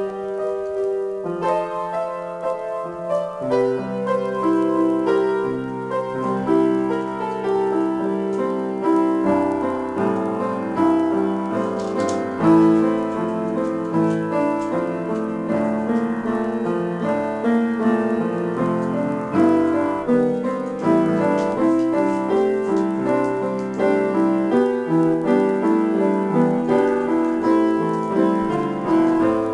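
Solo piano improvisation, with chords and melody lines played continuously and notes left to ring.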